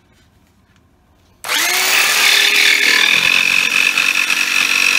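Electric power saw spinning up with a short rising whine about a second and a half in, then running loud and steady while cutting a thin strip of board for a patch.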